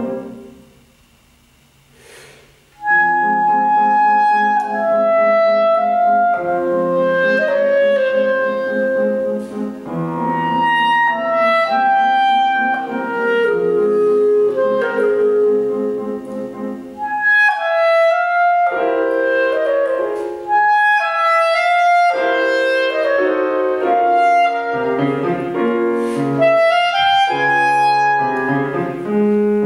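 Clarinet and grand piano playing classical music together. A piano sound dies away at the start, and after a pause of nearly three seconds both instruments come in and play on with a moving clarinet melody over piano chords.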